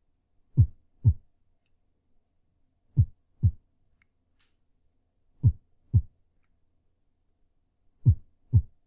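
Heartbeat sound effect: four slow double beats (lub-dub), the two beats of each pair about half a second apart and a pair about every two and a half seconds.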